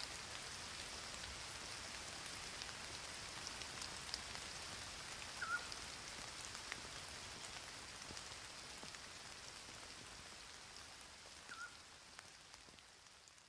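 Steady rain falling, with scattered drips and a short high chirp twice, about six seconds apart; fading out near the end.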